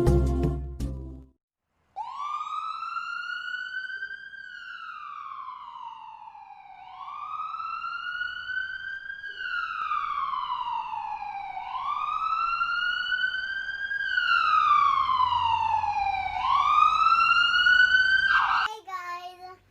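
Emergency-vehicle siren wailing: each cycle climbs quickly in pitch, then sweeps slowly back down, four cycles about five seconds apart. A music track ends about a second in, before the siren begins.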